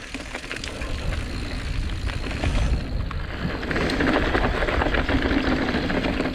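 Mountain bike rolling along a dirt trail: tyre noise and small rattles, with wind rumbling on the microphone, getting louder about two and a half seconds in.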